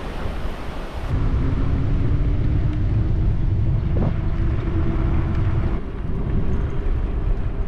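Low wind rumble on an action camera's microphone while cycling, with a faint steady hum running through the middle.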